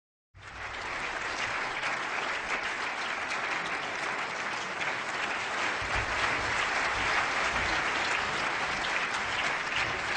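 Audience applauding: a steady crackle of many hands clapping that starts suddenly out of silence, with a few dull low thumps past the middle.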